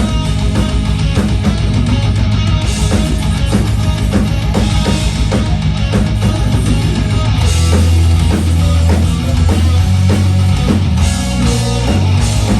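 Live rock band playing loud heavy rock: electric guitar, bass and a drum kit keeping a steady driving beat.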